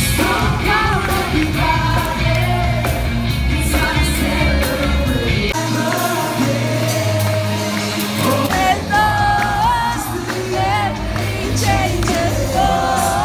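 Upbeat Christian worship song: singers over a full band, with a deep bass line that drops away about halfway through.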